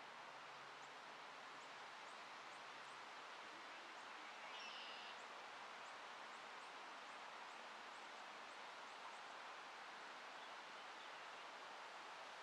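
Near silence: faint open-air ambience, a steady hiss with faint high chirps repeating about twice a second and a brief faint call about four and a half seconds in.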